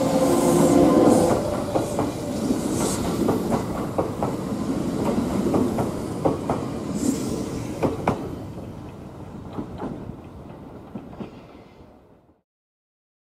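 Kintetsu 22000 series ACE limited-express electric train pulling out and accelerating away: steady motor hum, wheels clacking over rail joints, a few hisses, all fading as the train leaves. The sound cuts off suddenly about twelve seconds in.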